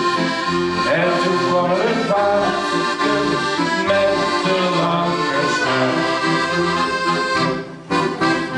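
Button accordion playing a lively tune in full chords, breaking off near the end and closing on one short final chord.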